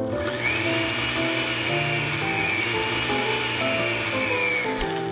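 Miniature electric hand mixer whisking a milky liquid in a small glass bowl, its small motor whirring. The whine rises about half a second in, dips once midway and climbs again, then falls away and stops just before the end.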